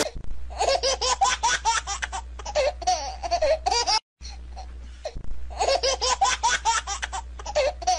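High-pitched human laughter in quick, rapid giggling bursts. It breaks off briefly about four seconds in, then starts again over a low steady hum.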